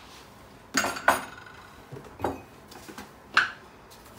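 Kitchen dishes clinking and knocking as they are handled and set down on a countertop: about five sharp clinks with a short ring, the loudest about a second in and again near the end.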